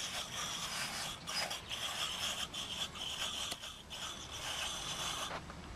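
Horse drinking from a fence-mounted water bowl, his muzzle rubbing and scraping against the bowl in a run of irregular rasping sounds.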